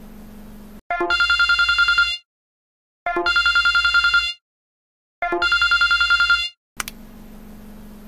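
Samsung phone ringtone in a classic telephone-ring style: three rapid trilling rings on one steady pitch, each just over a second long, with about a second's pause between them. A faint low hum comes before the first ring and after the last.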